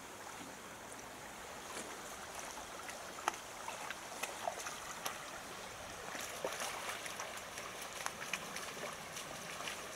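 Shallow rocky creek trickling steadily, with huskies wading through it and scattered light splashes and clicks.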